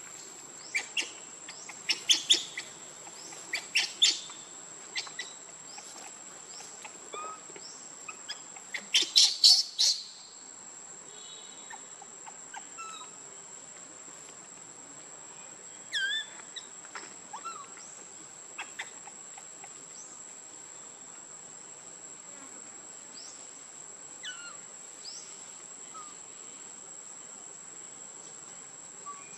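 A steady, high-pitched insect drone, with clusters of loud, sharp chirps in the first ten seconds and a few scattered, falling chirps later.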